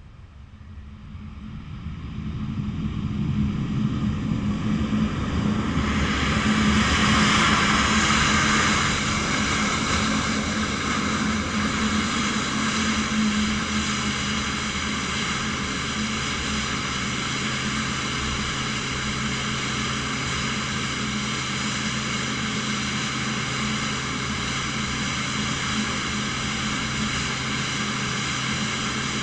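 Airbus A350's Rolls-Royce Trent XWB turbofan engines growing louder as the airliner comes in along the runway, loudest about seven seconds in. It then settles into a steady jet whine with several high, even tones as the aircraft stands close by with its engines running.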